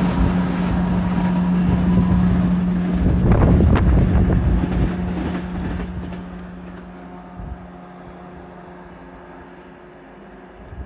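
Train passing along the line, its wheel noise and rattling loudest around four seconds in, then fading away as it recedes, over a steady low hum.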